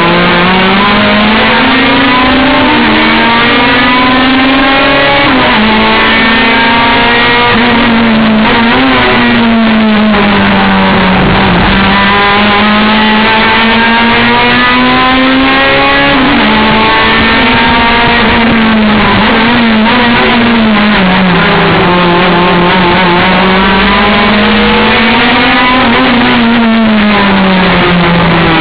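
A race car's engine, loud and close throughout, revving up and dropping sharply in pitch at each gear change. Several times it winds down under braking, then pulls up through the revs again.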